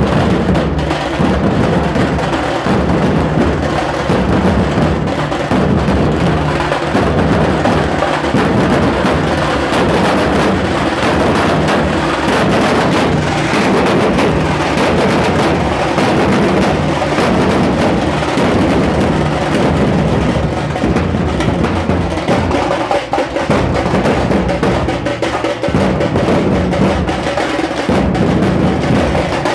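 Dhol-tasha ensemble: many large dhol barrel drums beaten with sticks in a loud, dense, repeating rhythm that runs unbroken.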